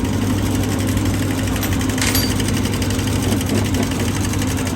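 Diesel engine idling steadily with a fast, even pulse, presumably running on the rebuilt injection pump; a short hiss cuts in about two seconds in.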